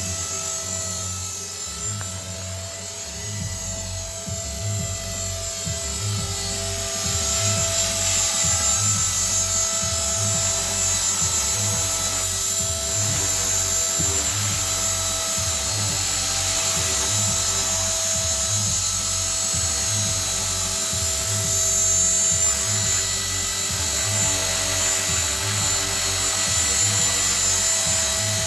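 Tarot 450 Pro electric RC helicopter in flight: the brushless motor and drive gears whine at a steady pitch over the whir of the rotor blades. It gets a little louder about seven seconds in.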